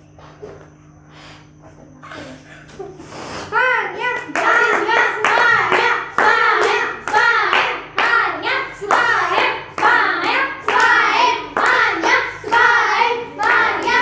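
A group of children chanting in rhythm and clapping along, starting about three and a half seconds in after a quieter stretch. It is a chant of encouragement for the players blowing up their balloons.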